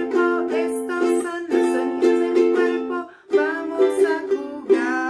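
Music: chords strummed on a string instrument in a steady rhythm. The strumming breaks off briefly about three seconds in, then resumes with a closing chord left to ring.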